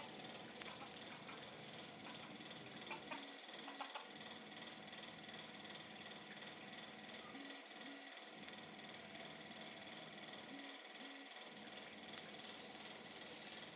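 Steady running and splashing of pond water. Three times, about every three to four seconds, a short double note sounds over it.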